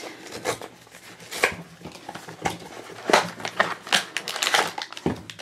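Small cardboard blind box being torn open by hand: the seal tab peeled and the flaps pulled back, with irregular clicks, taps and scrapes of thin cardboard.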